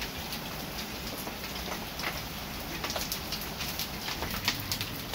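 Hailstones striking the garden with sharp ticks over steady rainfall, the hits coming more often from about halfway through as the hail picks up.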